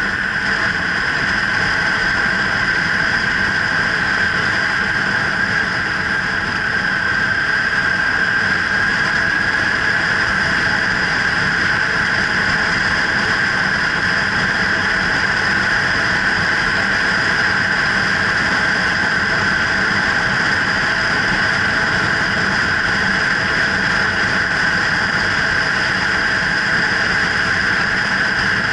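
Kawasaki Ninja 300's parallel-twin engine running at a steady cruise while riding, mixed with wind and road noise on the microphone; the pitch rises a little about ten seconds in and then holds.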